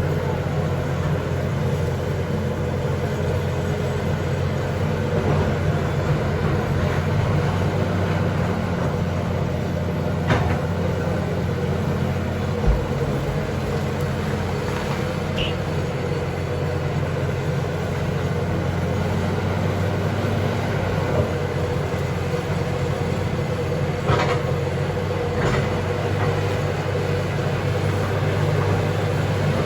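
John Deere backhoe's diesel engine running steadily, with a few brief sharp clicks over it.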